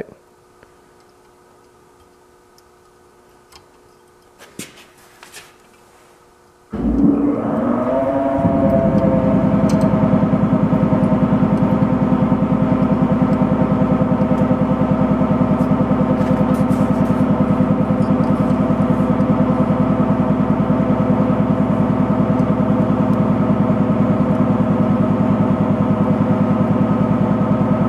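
A motor starts about seven seconds in, rises in pitch for a second or so, then runs at a steady pitch with a loud hum until near the end, where it begins to fade. Before it starts there are only a few faint handling clicks.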